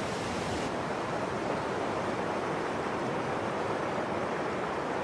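Steady rushing of white water in river rapids.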